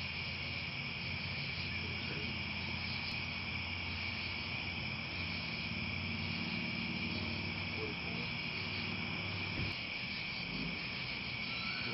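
Late-summer chorus of crickets at dusk: a steady, high, continuous trilling, with a low steady hum underneath and one soft knock about ten seconds in.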